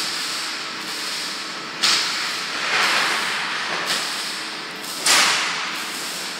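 Steady hiss of air from a vacuum membrane press, with three louder hissing bursts about two, three and five seconds in.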